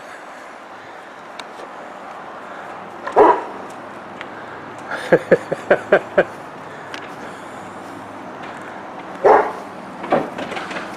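A dog barking: a bark about three seconds in, a quick run of about five short yips around the middle, and more barks near the end.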